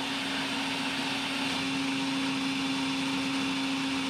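Shake-style personal blender's motor running steadily at one even pitch, blending an oil-and-red-wine-vinegar dressing into an emulsion.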